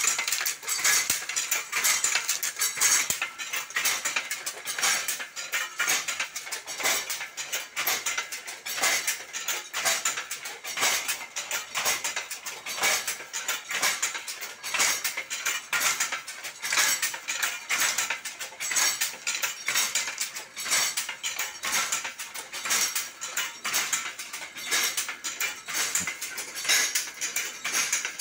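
Maina automatic handloom being worked: a continuous rattling clatter of clicks and knocks from the loom's moving parts, with louder knocks at a steady beat of about one a second as the beater is pulled.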